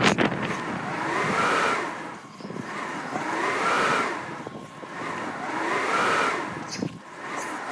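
Blizzard wind howling in gusts, a whistling tone that rises and falls in pitch with each swell, about every two and a half seconds. There are a couple of sharp snaps at the very start.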